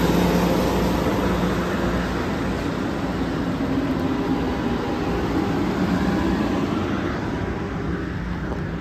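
Amtrak Pacific Surfliner bilevel passenger cars rolling past close by as the train pulls out, a steady rumble of wheels on rail that slowly fades.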